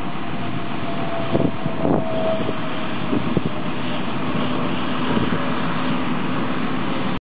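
Combine harvester running in wheat: a steady machinery noise with a faint held whine, and a few knocks in the first three and a half seconds.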